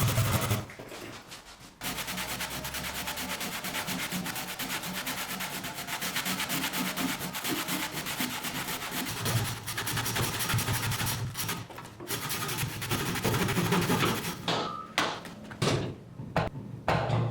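Sanding on wood: a steady, rapid scratchy rubbing that breaks into short bursts with gaps near the end.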